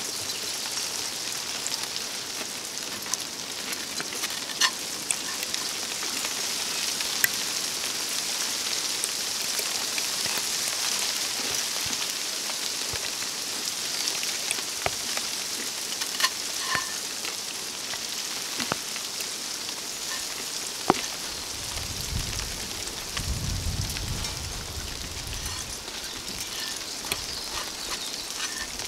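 A wooden spoon stirring and scraping food in a metal frying pan, with scattered small clicks and knocks, over a steady hiss. A brief low rumble comes near the end.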